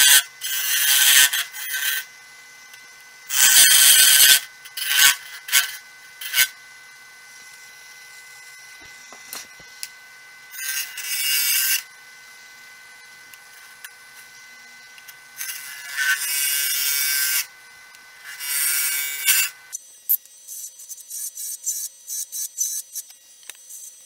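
Hollowing tool cutting inside a spinning wood cylinder on a wood lathe, in about seven separate scraping passes of up to a second or so each, over the lathe's steady whine. About twenty seconds in the cutting stops and the whine drops away, leaving a few light clicks.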